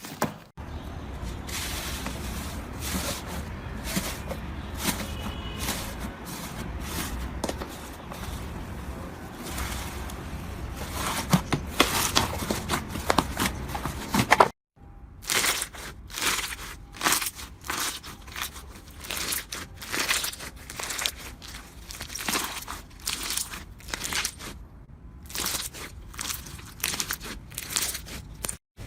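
Slime being squished by hand, with crackling and small pops. After a sudden cut about halfway through comes a run of sharper clicking pops.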